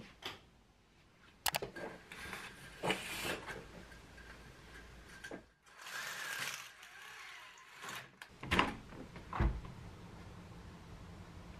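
Household handling sounds: clicks and rustles from a sliding closet door and then a roller blind, with a sharp click and a low thump near the end as a window is opened.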